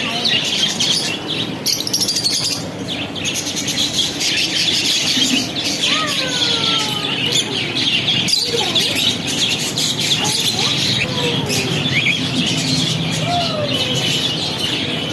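A crowd of small birds chirping and chattering over one another without a break, with a few lower, sliding whistled calls standing out.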